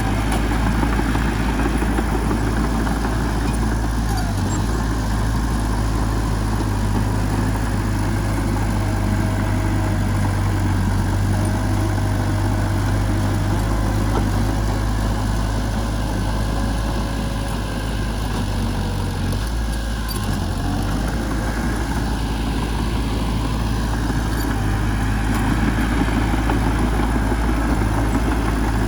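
Heavy-machinery diesel engine running steadily with a deep low rumble, easing off slightly about two-thirds of the way through.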